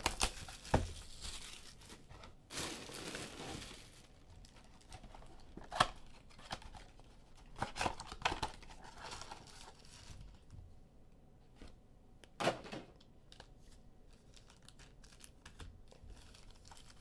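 Plastic wrapping on trading-card boxes and packs being cut and torn open and crinkled, with several sharp clicks and knocks from handling. The tearing is densest in the first four seconds, and it grows quieter after about ten seconds.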